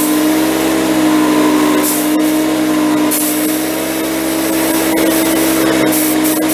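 Top Craft TCK 182 portable air compressor running with a loud, steady hum; the owner says it apparently has no tank, so it must run continuously. Compressed air hisses from the blow nozzle in bursts: a short one about two seconds in and a longer one from about three to six seconds in.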